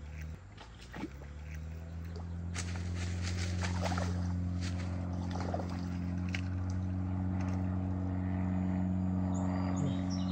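A motor engine's low, steady drone, growing louder over the first few seconds and cutting off abruptly near the end, with scattered light clicks and rustles over it.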